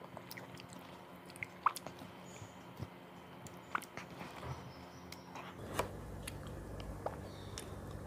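Quiet wet mouth sounds of biting and chewing ripe mango flesh off the skin: scattered soft smacks and clicks. A low steady hum underneath gets louder about five and a half seconds in.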